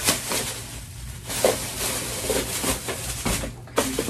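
Rustling and crinkling of shopping bags and packaging as purchased items are handled and pulled out.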